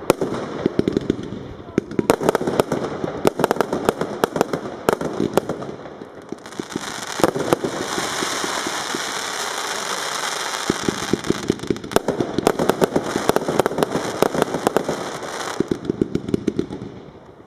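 Firework cake firing: a rapid run of sharp shots and bursts, then a few seconds of steady hissing crackle, then another rapid run of shots that dies away near the end.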